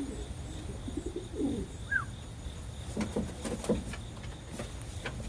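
Racing pigeons cooing in the loft: soft, low, wavering coos at intervals, with one short high chirp about two seconds in.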